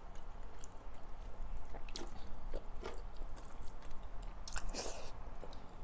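Close-up chewing of pork, vegetables and rice, with wet mouth clicks and smacks, while food is picked up from the plate by hand; a brief louder crackle about five seconds in.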